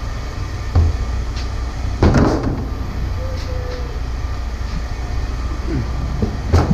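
Scrap metal clanking and knocking as it is handled, over a steady low rumble: one knock about a second in, a louder clatter about two seconds in, and another knock near the end.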